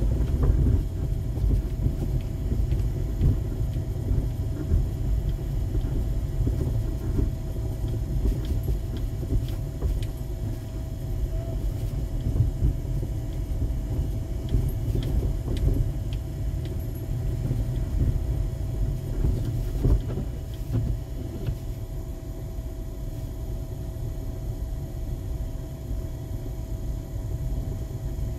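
Car cabin noise while driving on a snow-covered street: a steady low rumble of road and engine, with a faint steady whine in it.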